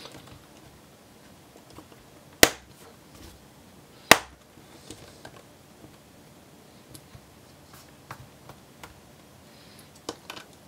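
Faint ticking of a small Phillips screwdriver turning the screws of a laptop's base panel, with two sharp clicks, about two and four seconds in, as the base panel's clips snap into place.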